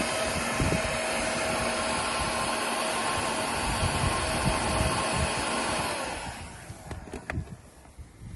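Heat gun blowing steadily while heating an aluminium gear lever for a shrink fit, then switched off about six seconds in and winding down, its pitch falling. A single light click near the end.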